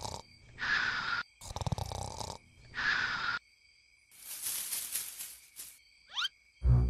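Cartoon snoring: two snores, each a rough rattling inhale followed by a breathy exhale. Then a hiss of about a second and a half, and a quick sliding whistle effect just before music starts near the end.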